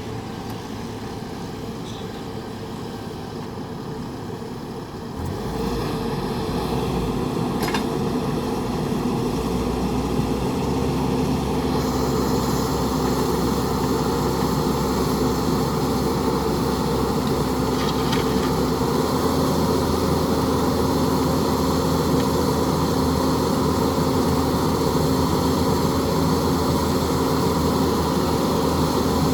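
An engine running steadily, growing louder about five seconds in and again around twelve seconds.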